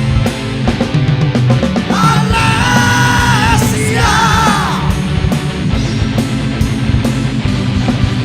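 Loud rock music with drums and guitars, and a long high note held from about two seconds in that slides downward near the five-second mark.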